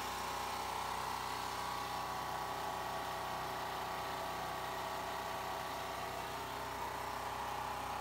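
Portable generator's engine running at a steady speed, an unbroken hum.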